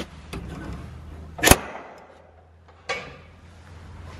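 A few sharp metal clacks as a barrel bolt on a metal shower-room door is worked and the door is pulled open. The loudest clack comes about a second and a half in, and a lighter one follows near three seconds.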